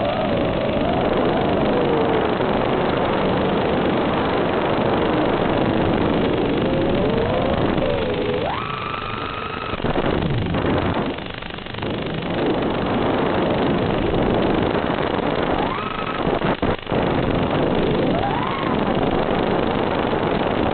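FPV quadcopter's brushless motors whining over a rush of wind, the pitch rising and falling with the throttle. About eight seconds in the whine jumps sharply higher, then it drops away with a few seconds of uneven sound while the quad is against a tree, and it briefly cuts out a couple of times later before the whine climbs again.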